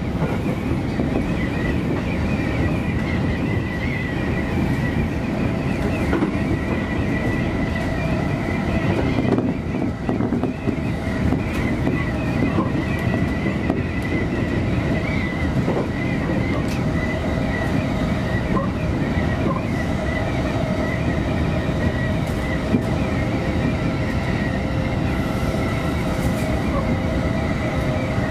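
Electric commuter train running at speed, heard from inside the front car: a steady rumble of wheels on rail with a faint, steady high whine over it.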